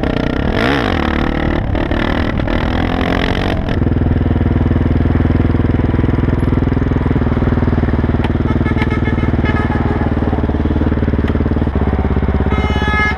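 Off-road motorcycle engine running. Its pitch rises and falls over the first few seconds, then holds steady.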